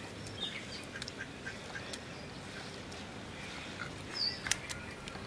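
Ducks quacking faintly in the background over a low steady hiss, with a few light clicks of a stone grinder on a stone slab. A short high chirp and two sharp clicks come about four and a half seconds in.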